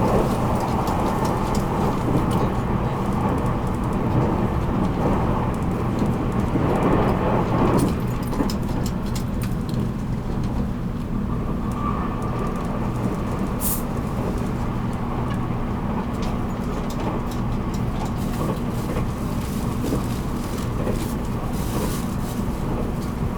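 Running noise of a JR Kyushu 783 series electric train, heard from inside a motor car: a steady rumble of wheels on rail with a constant electrical hum. The noise swells briefly about seven seconds in.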